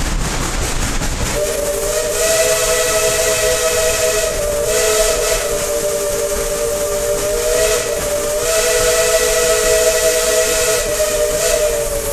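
Steam locomotive whistle blowing one long chord of several tones, lasting about ten seconds, with a hiss of steam over it. It starts a little over a second in and cuts off near the end.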